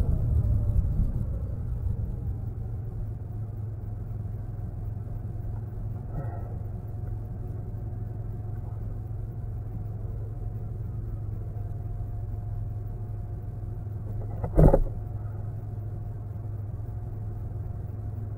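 Motorbike engine running with a steady low rumble, a little louder in the first couple of seconds as the bike rolls to a stop, then idling at a standstill. One short sharp knock about two-thirds of the way through.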